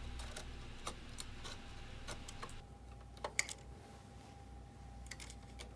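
Faint, scattered small clicks and ticks, with a slightly stronger pair of clicks about three seconds in, from printer parts being handled as the mainboard is fitted back into place.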